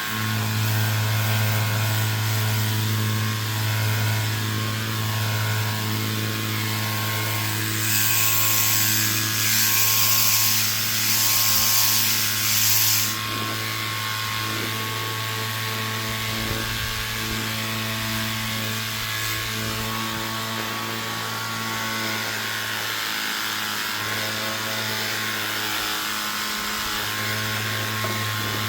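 Pressure washer running with a steady hum. Between about eight and thirteen seconds in, a louder hiss of water spray is added.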